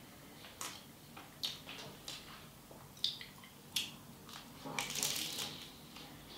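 Crunching and chewing of flaky, crisp phyllo pastry of a homemade cheese pie (tiropita): several short crackles, then a denser run of crunching about five seconds in.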